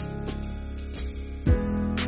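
Background music led by a plucked acoustic guitar, with a strong low note about a second and a half in.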